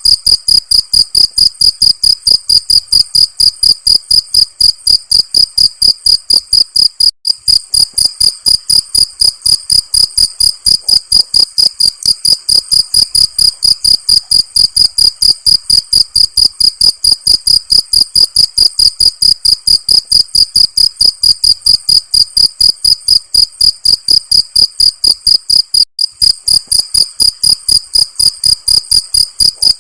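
Cricket chirping in an even, rapid rhythm of about three high-pitched chirps a second, with two brief breaks.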